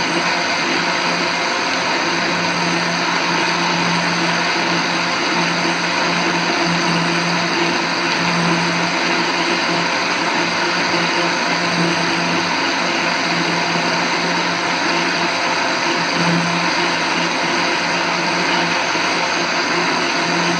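Electric mixer-grinder running steadily at full speed, blending jamun fruit with water and crushed ice into juice.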